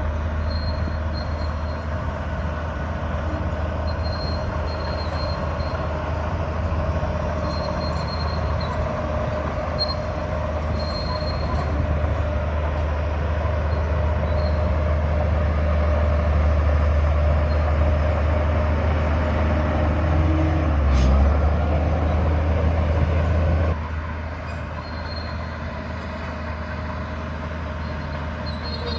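Bulldozer's diesel engine running under load with its tracks working, a thin high squeal coming and going. It grows louder toward the middle, with a sharp knock about 21 seconds in, then drops abruptly about 24 seconds in.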